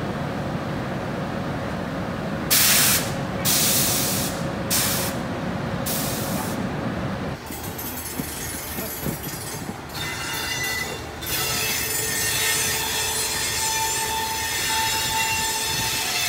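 A standing WAP-7 electric locomotive hums steadily, with four short, loud bursts of air hiss in the first half. Then a departing express train's wheels squeal on the rails, with thin high squealing tones from about ten seconds in.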